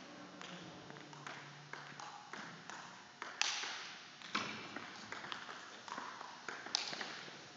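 Table tennis rally: the celluloid ball's sharp clicks off paddles and table at an irregular pace of about two a second, each echoing in a large hall.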